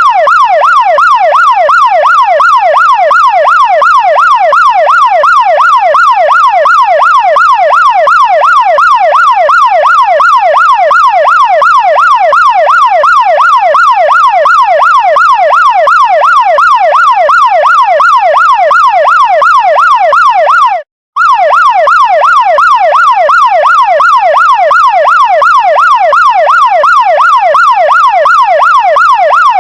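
Chinese fire truck siren sounding a fast yelp, its pitch sweeping up and down about three times a second without a break. It cuts out for a split second about two-thirds of the way through, then carries on as before.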